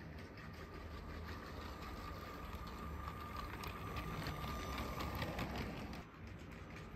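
Motorised Lego train running along plastic Lego track: a steady electric-motor whine and hum with light, irregular clicking of the wheels over the track. The sound briefly drops and changes about six seconds in.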